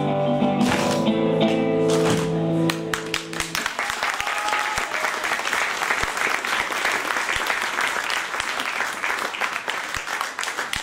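The last bars of a children's choir song end on a long held chord about three and a half seconds in, and the audience then applauds.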